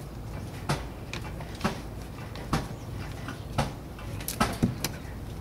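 A series of short, sharp clicks or knocks, about one a second, with three coming quickly together near the end.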